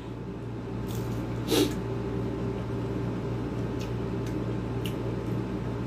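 A man eating with his hand: faint mouth sounds and a few light clicks over a steady low hum. A short hummed vocal sound comes about one and a half seconds in.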